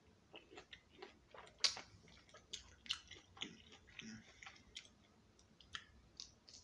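Close-up mouth sounds of someone eating orange slices: wet chewing and smacking, with irregular small clicks and one louder smack about 1.7 seconds in.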